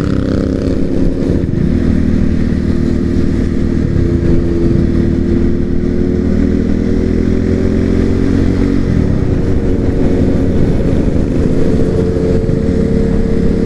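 Sport motorcycle engines running at a steady cruising pitch while riding, over a dense low rumble.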